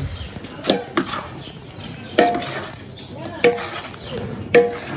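A steel spoon stirring a cooked potato-and-vegetable mix in a large steel pot. The spoon clinks sharply against the pot every second or so, and each clink rings briefly.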